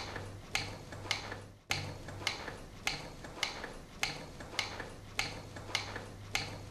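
Regular ticking, a little under two ticks a second, over a faint low hum.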